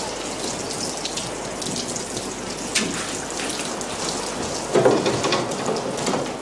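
Water running and splashing steadily, like a heavy downpour, as from an overflow pouring through a ceiling. It swells a little about five seconds in.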